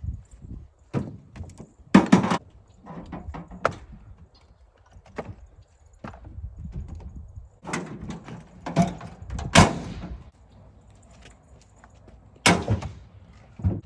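Split firewood pieces being thrown onto a load of firewood in a pickup truck bed: a series of sharp wooden knocks and clunks, about eight of them, the loudest about nine and a half seconds in.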